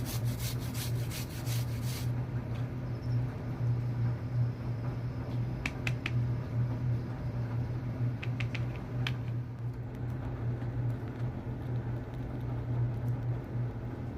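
A steady low hum runs throughout. Over it come rapid rhythmic crunching for about the first two seconds and a few sharp clicks around the middle: piglets chewing apple.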